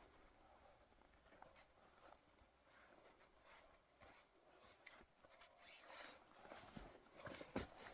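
Faint scraping and rustling of a knife working through hide as a moose is skinned, with scattered small clicks, a slightly louder flurry about six seconds in and a sharp knock near the end.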